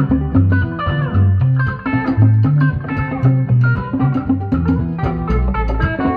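Live band music led by electric guitar playing quick picked melody runs over a moving bass line and drums.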